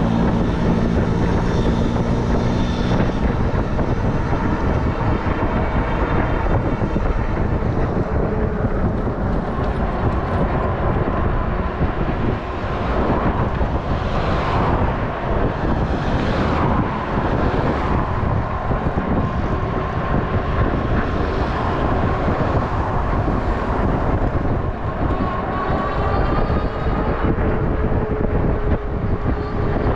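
Wind rushing over the microphone, with road noise, from an electric bike riding at about 34 km/h. A motorcycle engine runs close by for the first three seconds, and a thin steady whine comes in during the second half.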